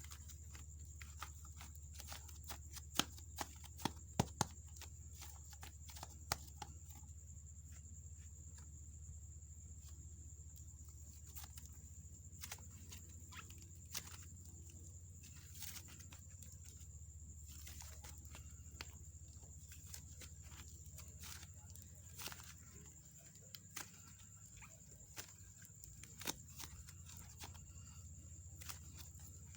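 Soft clay slime being handled and squished, giving scattered small sticky clicks and pops, with a cluster of louder ones about three to four seconds in. Under them sit a steady low hum and a faint high whine.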